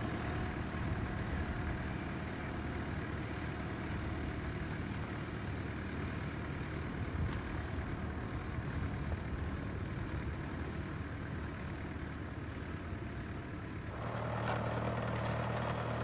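An engine running steadily, with a low hum. About fourteen seconds in the sound changes, becoming a stronger, deeper hum.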